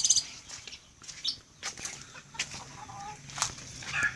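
Caged songbirds, a leafbird and a cucak jenggot bulbul, calling: a rapid high trill at the start, then scattered short chirps. Sharp clicks and flutters from the cages are mixed in.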